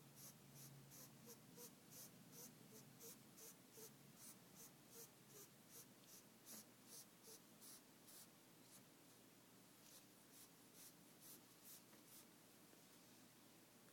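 Pionus parrot wheezing: faint, rhythmic raspy hisses, about two or three a second, that thin out and stop about twelve seconds in. The Pionus wheeze is a normal sound of alarm or excitement, not a sign of respiratory illness.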